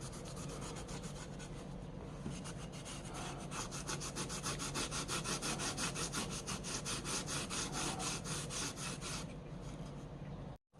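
Rapid back-and-forth rubbing strokes, about five a second, growing stronger a few seconds in, then cutting off abruptly near the end.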